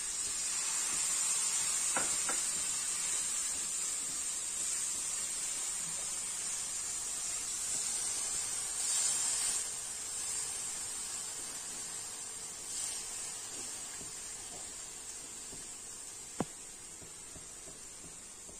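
Milk hissing and sizzling in a hot pan of grated beetroot, the hiss slowly dying down as it heats through. A couple of light clicks.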